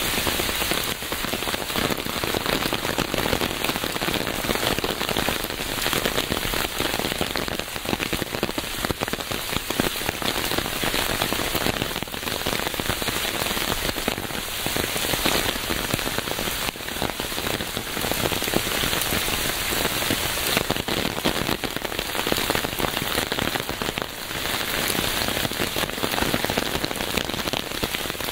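Steady rain falling on a hard surface: a dense hiss of many fine drop impacts that does not let up.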